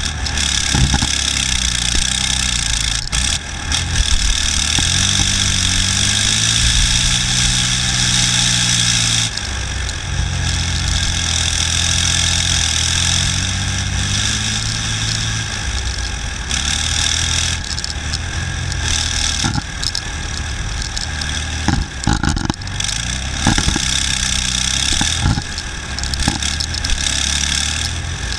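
Tracked BVP infantry fighting vehicle driving off-road: its diesel engine runs loudly, the note rising and falling several times with speed. A dense clatter of tracks and shaking hull is heard over it, with a few sharp knocks in the second half.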